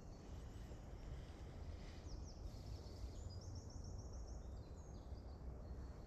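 Faint songs of small forest birds over a low, steady background rumble: a few quick falling notes about two seconds in, then a fast run of about seven high repeated notes a second later.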